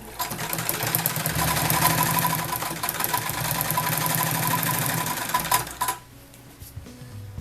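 Antique Singer Model 66 sewing machine running under power, its needle stitching rapidly in a steady run of fast clicks with a motor hum. It stops about six seconds in.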